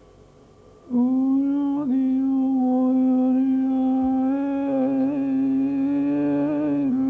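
A voice chanting a long, held note, starting abruptly about a second in and staying on one pitch with slight wavers; a lower steady note joins about halfway.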